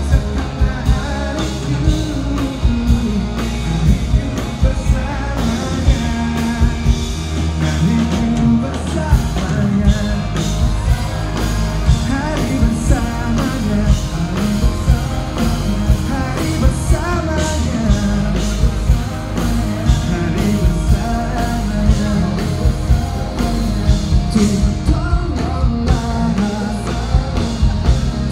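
Live pop-rock band playing with a drum beat while a singer sings an Indonesian song into a microphone.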